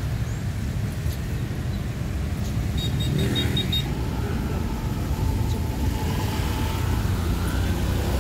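Road traffic passing close by on a wet city street: a steady low rumble of engines and tyres. A small vehicle's engine goes by about three seconds in, along with a brief run of high chirps, and a faint whine from another passing vehicle follows.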